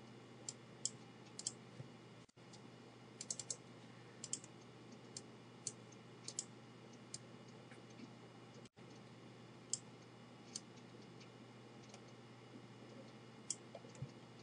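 Computer mouse buttons clicking irregularly: single sharp clicks and quick little clusters, now and then a pause of a couple of seconds, over a faint steady low hum.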